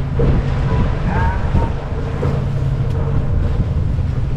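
Boat's outboard motor running at a steady pitch under way, with wind buffeting the microphone.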